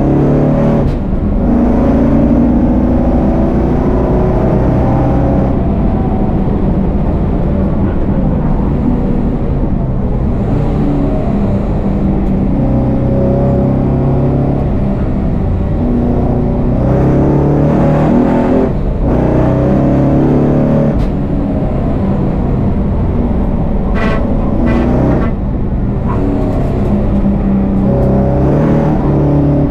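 1000 hp VF Commodore race car's engine, heard from inside the cabin, running hard on track. The engine note climbs through the revs and drops back at short breaks several times, as at gear changes or lifts. The exhaust is loud enough that the car exceeded a 95 dB track noise limit.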